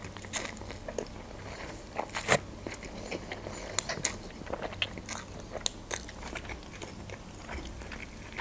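Close-miked eating sounds of instant noodles: slurping noodles off a fork and chewing, with scattered sharp wet mouth clicks.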